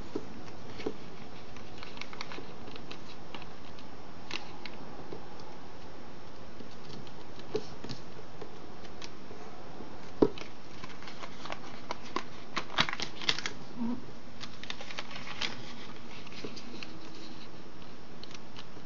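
A sheet of origami paper being folded and creased by hand on a wooden table: scattered soft rustles and crinkles, a sharper tap about ten seconds in, and a cluster of crisp crackles a couple of seconds later, over a steady hiss.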